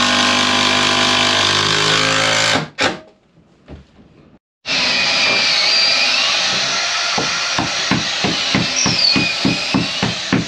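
Cordless drill with a long bit running against an oak hull frame. It whirs steadily and stops abruptly about two and a half seconds in. A couple of seconds later it starts again, drilling into the wood with a harsh grinding, and from about halfway through the grinding is broken by a regular knock about three times a second.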